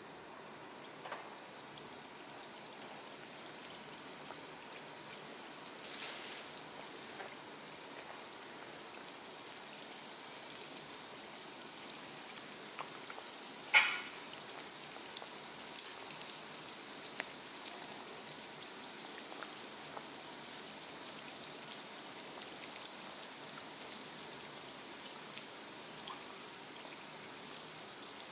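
Low-carb yeast donuts deep-frying in hot oil: a steady sizzle that grows a little louder, with a few sharp spatter pops, the loudest about halfway.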